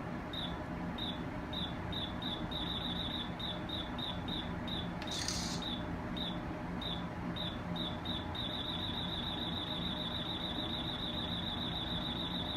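Radar detector alert beeping at the VIZIR-2M radar signal: short high beeps at an uneven pace of about two a second, turning into a fast unbroken run of beeps about two-thirds of the way in, over a low steady hum. A short hiss cuts in about five seconds in.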